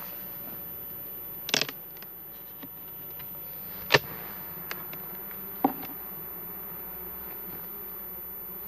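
Honey bees buzzing steadily around an open hive, a colony calm enough to be worked without smoke. A few sharp knocks and clicks come through the buzz, the loudest about four seconds in.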